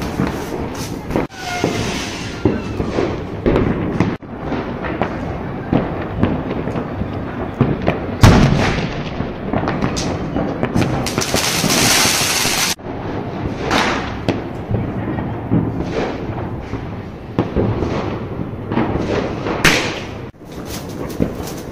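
Diwali fireworks and firecrackers going off all around: many sharp bangs and cracks over constant crackling, with a loud hiss lasting about two seconds near the middle that cuts off suddenly.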